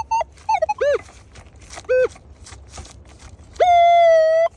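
Minelab metal detector giving target tones as the coil is swept over a buried target: short beeps and rising-and-falling chirps, then a long steady tone near the end. It is a strong, repeatable signal from a large copper coin in the ground.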